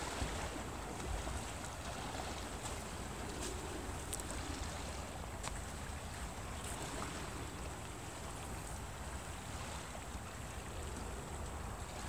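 Wind-stirred harbour water washing against shoreline rocks: a steady even wash with a few faint scattered splashes, over a low rumble of wind.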